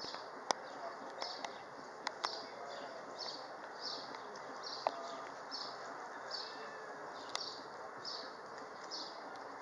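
Outdoor ambience: a steady rushing noise, with a soft high swish repeating a little under twice a second and a few sharp clicks.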